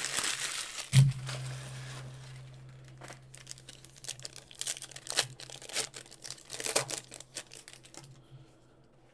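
Foil trading-card wrappers crinkling, then a foil pack being torn open and peeled with many small crackles. There is a thump about a second in, followed by a low hum that fades over several seconds.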